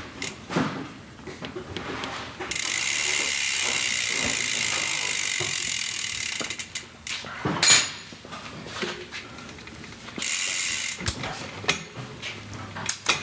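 A steady high mechanical ratcheting buzz for about four seconds, then a few sharp clicks and knocks, then the buzz again briefly, from parts being worked on during a bicycle build.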